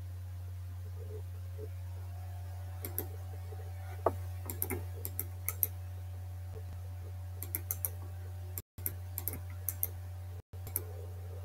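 Scattered computer mouse clicks and light desk taps, single and in small clusters, over a steady low electrical hum. The audio cuts out completely for an instant twice near the end.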